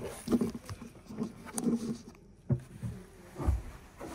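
Knocks and clunks of a campervan's RIB seat bed being unlatched and folded over, with a sharp click about two and a half seconds in and a heavier thump about a second later.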